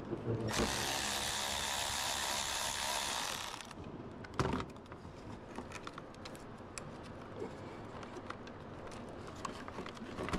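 A small power tool runs for about three seconds, then a single knock, followed by faint scattered clicks of tools being handled.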